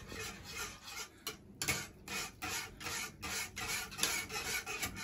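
Wire whisk beating thick yogurt (qatiq) in a pot: a rhythmic wet swishing, about three strokes a second.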